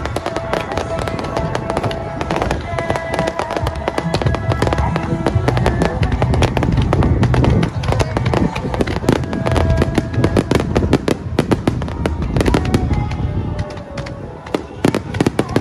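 Fireworks bursting in quick succession, deep booms mixed with dense crackling, with music playing underneath.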